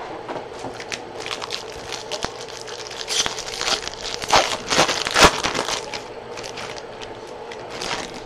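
Trading-card pack wrapper crinkling and crackling in the hands as it is opened, busiest and loudest about four to five seconds in.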